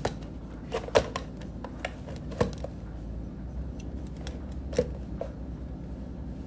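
Scattered light clicks and knocks, a handful over several seconds, from a phone camera and its tripod being handled and repositioned, over a low steady hum.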